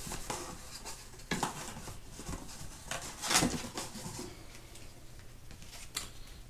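Hands rummaging in a cardboard box of packed parts: rustling of packaging with a few sharp clatters, the loudest about three seconds in.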